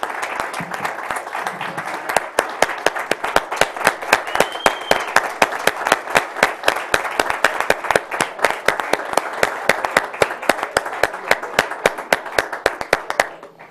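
Audience applauding, with loud, quick, even claps from one pair of hands close by starting about two seconds in. The applause stops abruptly near the end.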